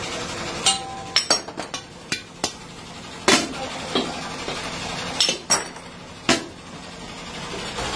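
Aluminium pan bowls clanking and clinking as they are set down onto stacks of other bowls. About a dozen sharp metallic knocks come at uneven intervals, a few ringing briefly.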